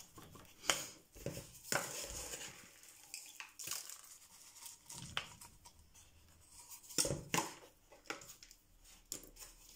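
Fleshy leaves of a black rose aeonium rustling and snapping as they are pulled off the rosette by hand, in scattered short clicks and rustles.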